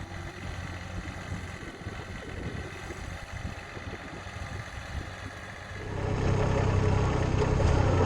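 Kubota compact tractor's engine idling steadily. About six seconds in, the sound jumps suddenly louder and fuller.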